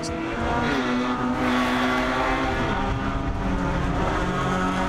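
Mazda race car's engine heard from inside the cockpit, running steadily at speed on track, its pitch stepping down about a second in as at a gear change.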